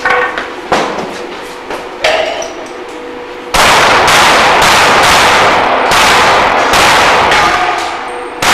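Pistol shots: a few single shots spaced about half a second to a second apart, then from about three and a half seconds in a fast, loud string of shots, with steel targets clanging as they are hit.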